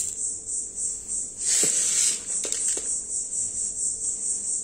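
A steady, evenly pulsing high-pitched chirring of insects, such as crickets, runs throughout. About a second and a half in, dried chana dal rattles briefly into a steel bowl, followed by a few light clinks of the steel measuring cup against the steel.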